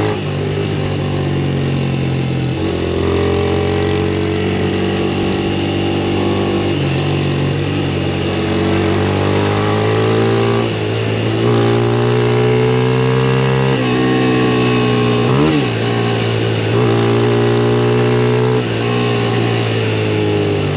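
Honda CG 160 Start's single-cylinder four-stroke engine running while the motorcycle is ridden, the engine note stepping up and down in pitch every few seconds as the throttle and gears change, with a quick dip and rise in revs about three-quarters of the way through.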